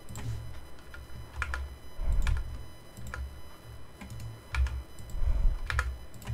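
Computer keyboard keys tapped in short, scattered clusters of clicks, with low dull thumps between them.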